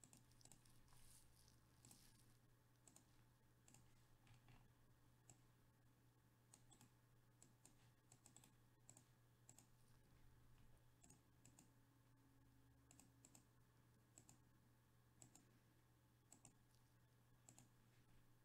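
Faint, irregular clicking of a computer keyboard and mouse over a low steady hum.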